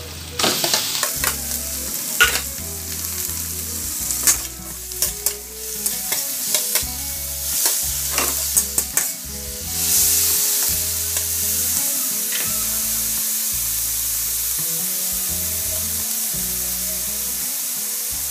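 Ground pork frying in a metal wok: a metal spatula scrapes and clacks against the pan as the meat is stirred, over a sizzle. About ten seconds in the stirring stops and a steady, louder sizzle carries on alone.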